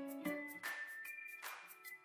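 Background music: a light plucked, bell-like melody of quick notes that stops about half a second in, leaving a few faint ringing high notes.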